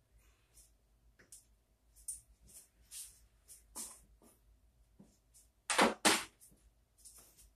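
A craps stick pushes a pair of dice across a felt table, giving scattered soft scrapes and light clicks. Two loud, short bursts of noise come just before and just after six seconds in.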